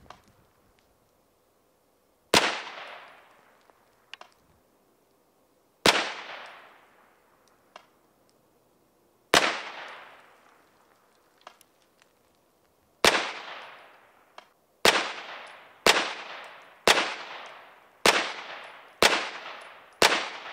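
Extar EP9 9mm carbine firing 115-grain FMJ rounds, ten shots in all, each followed by a trailing echo. The first four are slow aimed shots about three and a half seconds apart, then six come quicker, about one a second.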